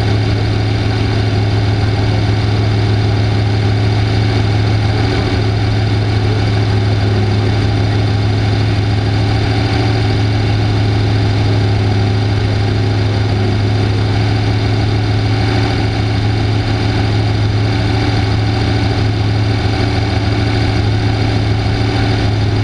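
Off-road race vehicle's engine idling steadily, with an unchanging low hum and no revving.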